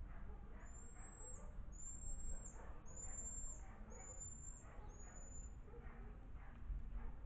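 A series of five high, thin whistled calls, about one a second, each held steady for about half a second and then dropping in pitch, over a low background rumble.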